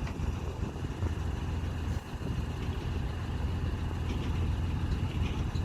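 Truck-mounted mobile crane's diesel engine running steadily with a deep, low hum.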